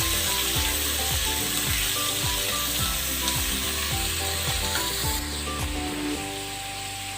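Sliced onions frying in hot oil with whole spices, a steady sizzle. Background music with a beat and short notes plays underneath and fades out near the end.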